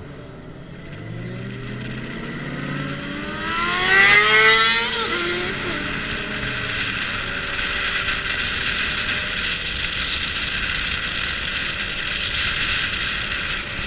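Car engine revving hard under full acceleration, its pitch rising steeply for about four seconds to a loud peak, then dropping suddenly about five seconds in as the driver shifts or lifts off. A steady rush of wind and road noise at speed follows.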